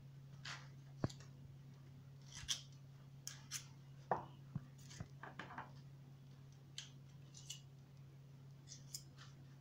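Faint, irregular clicks and short scrapes of a small metal utensil working against a plastic mixing bowl, over a steady low hum.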